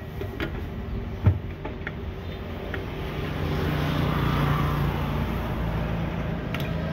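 A sharp knock about a second in, then a low motor hum that swells and eases off.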